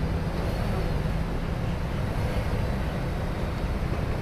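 An engine running steadily, a low, even rumble with no change in pitch or level.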